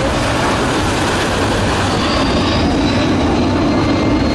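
A large jet aircraft's engines rumble steadily overhead, with a faint high turbine whine coming in about halfway through.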